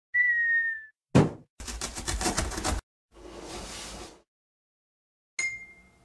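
Cartoon sound effects for an animated logo intro: a short whistle falling slightly in pitch, a quick swish, about a second of rapid clattering, a softer whoosh, then a bright ding that rings away near the end.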